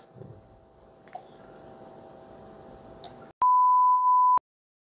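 A single steady electronic beep, one pure high tone about a second long, starting about three and a half seconds in and cutting off sharply into dead silence. Before it, only faint room tone with a few small clicks.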